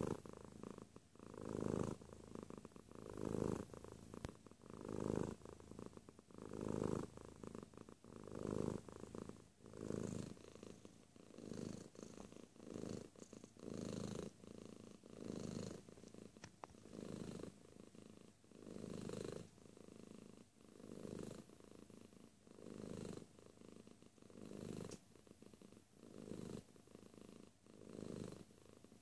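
Domestic cat purring close to the microphone, a steady low buzz that swells and fades with each breath, about once every two seconds.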